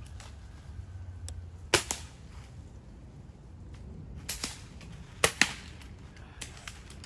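Air rifle shots: three sharp cracks, near 2, 4 and 5 seconds in, each followed a fraction of a second later by a second crack, with lighter clicks between.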